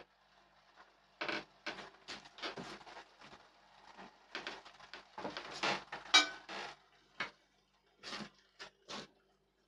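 Pots and utensils being handled, a string of short knocks and clatters, the sharpest about six seconds in.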